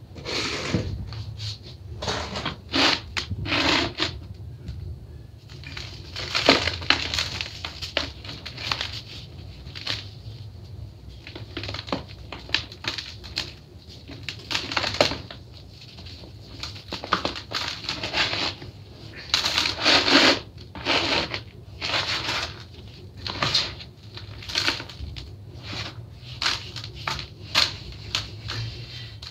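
Hands crushing and crumbling molded blocks of dry, gritty powder in a plastic bucket. The blocks break with irregular, crisp crunches, and gritty crumbling and rubbing fills the gaps as the pieces are pressed and mixed.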